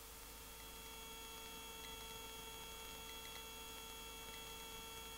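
Faint steady hum made of several fixed tones, heard on the Cabri G2 helicopter's intercom audio, with a few faint ticks; the helicopter's rotor and engine noise is barely heard.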